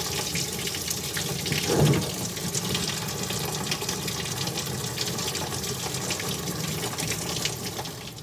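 Coolant draining from a 1963 Studebaker Avanti's cooling system: a steady stream of very thin green antifreeze pouring and splashing. There is one brief louder bump about two seconds in.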